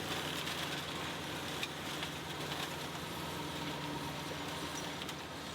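Tractor diesel engine running at a steady speed, with a few faint clicks.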